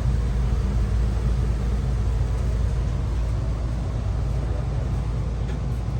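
Ruud gas furnace running: a steady low rumble.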